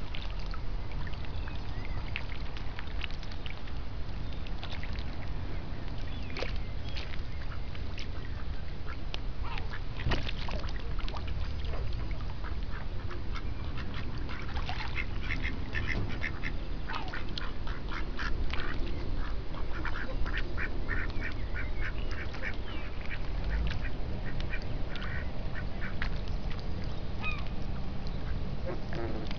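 Mallard ducks quacking on and off, with a quick run of quacks around the middle, over a steady low rumble.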